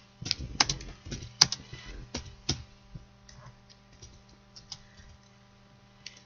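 Computer keyboard being typed on: a quick run of key clicks in the first three seconds, then fewer, scattered keystrokes.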